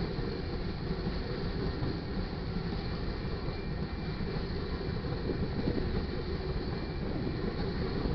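Loaded covered hopper cars of a grain train rolling past at the crossing: a steady, even noise of steel wheels running on the rails, with no break or change.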